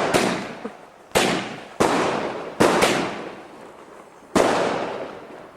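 Firework going off: a series of about six sharp bangs at uneven intervals, each trailing away over roughly a second.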